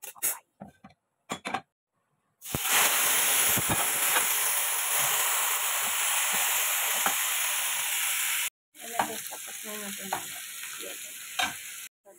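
Chicken pieces frying in hot oil in a nonstick grill pan: a loud steady sizzle starts about two and a half seconds in, with light clicks of a metal slotted spoon moving the pieces. It cuts off abruptly past the middle and gives way to a quieter stretch with a few clicks.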